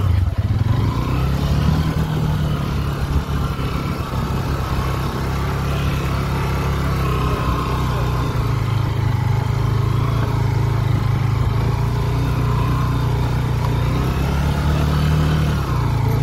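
Motorcycle engine running steadily at moderate revs, the pitch drifting slightly up and down.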